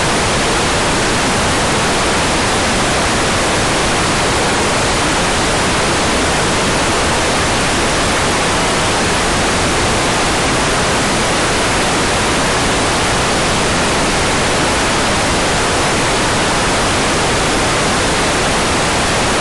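Hair dryer running steadily: an even, unchanging rush of air with no breaks or changes in pitch.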